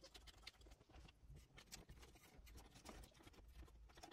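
Near silence with faint, scattered clicks and taps of small metal parts, motherboard screws and standoffs, being handled and fitted inside a PC case.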